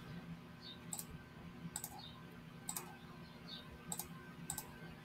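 Faint computer mouse clicks, five of them about a second apart, as sketch pieces are selected one by one, over a low steady hum.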